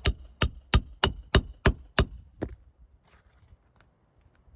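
Hammer driving a roofing nail into an asphalt shingle: a quick, even run of about eight ringing strikes, roughly three a second, that stops about two and a half seconds in.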